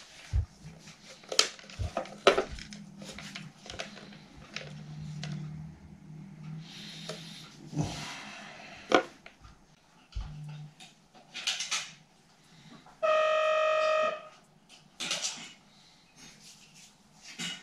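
Scattered clicks and knocks of a VW T4 door mirror's housing and parts being handled and worked on by hand. About 13 seconds in, a single loud, steady horn-like tone sounds for about a second.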